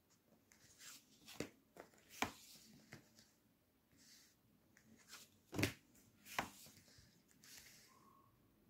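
Thin paperback booklets handled one after another: covers sliding and flipping with soft paper swishes, and a few sharp taps, the loudest a little past the middle.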